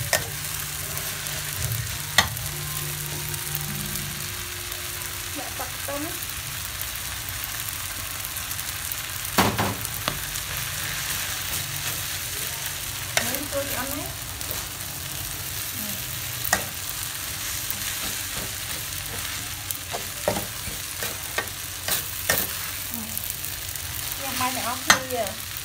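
Glass noodles with shrimp and vegetables sizzling as they are stir-fried in a metal wok, a spatula scraping through them and now and then knocking sharply against the pan.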